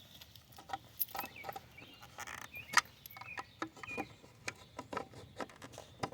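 Scattered plastic clicks and knocks from a car's turn signal/parking light bulb socket and lamp housing being handled and fitted back together, the sharpest click about three seconds in. A few short bird chirps sound in the background.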